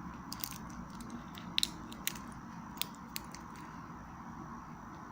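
Scattered sharp clicks and light metallic taps, with a close pair about a second and a half in, from stainless-steel wristwatches and their bracelets being handled, over a steady low hum.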